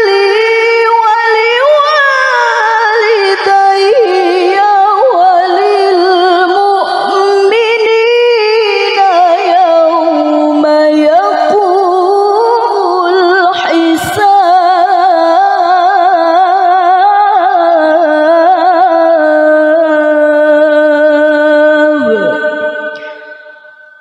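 A woman's Quran recitation sung into a microphone: long, high, melismatic held notes with a wavering vibrato, broken once by a quick pause about halfway through. The phrase sinks in pitch and trails off near the end.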